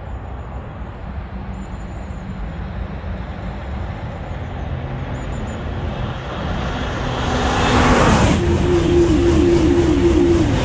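Eurostar Class 373 high-speed train approaching and passing at high speed. Its noise builds to a loud rush about eight seconds in, then turns into a fast repeating beat as the coaches go by. Underneath is the steady hum of motorway traffic.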